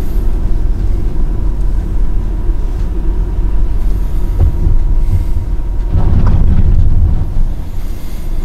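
Steady low rumble of a car's engine and tyres heard inside the cabin while driving, swelling louder for about a second and a half around six seconds in.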